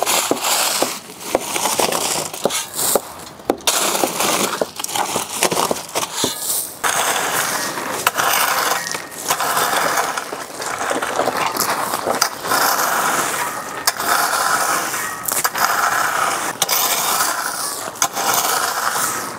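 Loose gravel being raked and spread, the stones scraping and rattling against each other in repeated strokes.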